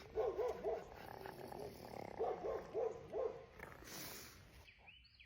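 Turkey burping: two short arched calls near the start, then three or four more about two seconds in.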